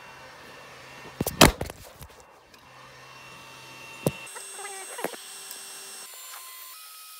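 Creality Ender 5 Pro 3D printer's stepper motors whining as it begins CR Touch auto bed levelling. The whine changes pitch in steps as the axes move, with a few short rising chirps. A loud clattering knock comes about a second and a half in.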